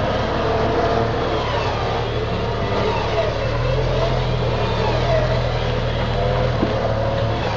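Jeep Grand Cherokee engine running at low speed as the SUV crawls over trail boulders, its pitch rising and falling slightly with the throttle. A single light click near the end.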